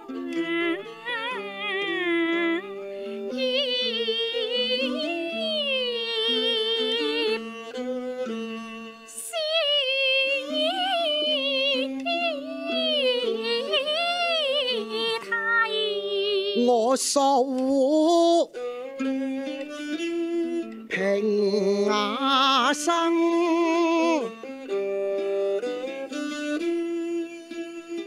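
A woman sings a slow Cantonese opera (yuequ) aria in long melismatic phrases with wide vibrato. She accompanies herself on a bowed two-string huqin fiddle, which holds notes under the voice.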